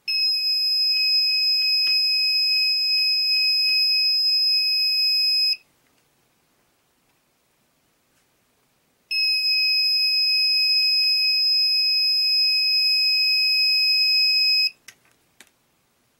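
Electronic buzzer of a homemade laser tripwire alarm sounding a steady high-pitched tone as the beam is blocked, cutting off after about five and a half seconds, then sounding again after a few seconds' gap for another five and a half seconds. A few light clicks follow near the end.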